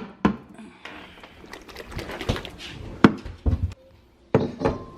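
Kitchen items being handled: several sharp knocks and clinks at irregular intervals, as a can of pasta is set down and a bowl got out.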